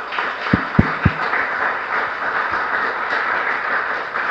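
Audience applauding steadily. Three dull low thumps fall close together in the first second.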